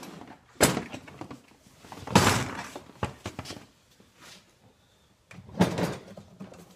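Hard plastic stacking toolboxes (Husky Connect) being unlatched, lifted off and set down: a sharp knock about half a second in, a longer clatter around two seconds in, a couple of clicks, then another clatter near the end.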